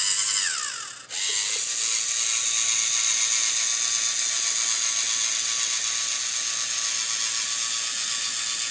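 LEGO Mindstorms NXT robot's servo motors and plastic gear trains whirring as the tracked robot drives. The whine falls in pitch and stops about a second in, then starts again and runs steady.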